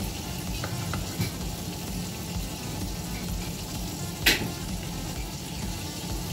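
Mushrooms sizzling in oil in a frying pan over a steady low hum. A knife knocks sharply once on a wooden cutting board about four seconds in, with a few lighter knife clicks near the start.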